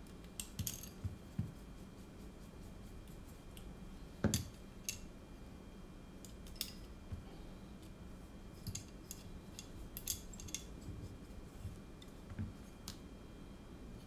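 Small scattered clicks and taps of a hex screwdriver turning small screws into a carbon-fibre drone frame as the frame is handled, with one louder knock about four seconds in.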